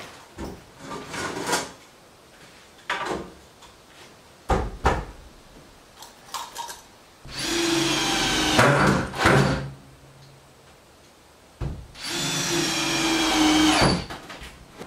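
Power drill driving screws into wooden shelf framing in two runs of about two seconds each, the second near the end. Before them come a few knocks and clatters of lumber being handled.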